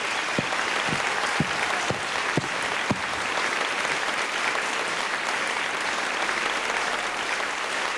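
A large concert-hall audience applauding steadily after a song. Through the first three seconds a low thump recurs about twice a second under the clapping.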